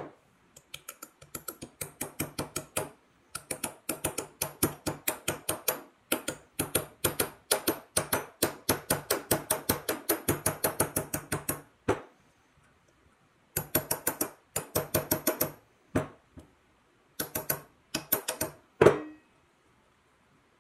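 Rapid, even metal-on-metal tapping on a drill press quill assembly, about five light taps a second, each with a short ring. Two shorter runs of taps follow after pauses, then one louder knock near the end.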